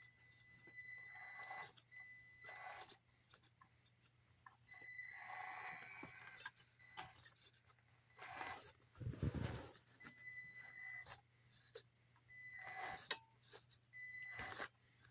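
Traxxas TRX-4M Ford F-150 RC crawler driven in short bursts of throttle: its small electric motor and gears whine on and off, with scraping as it climbs over the board and a low thump about nine seconds in.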